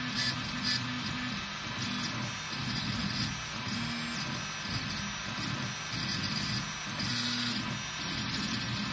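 Tevo Black Widow 3D printer printing: its stepper motors whine in short tones that jump in pitch with each move of the print head, over a steady fan hum.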